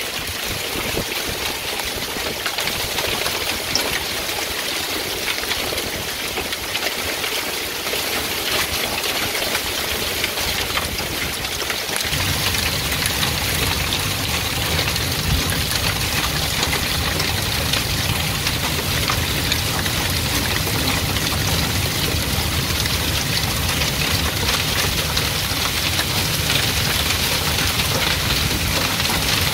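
Hail and heavy rain pelting a deck and walkway: a dense patter of small hits over a steady hiss. About twelve seconds in, a low rumble joins and the whole grows a little louder.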